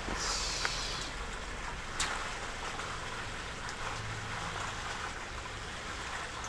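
Steady, even hiss of swimming-pool water, with a faint tick about two seconds in.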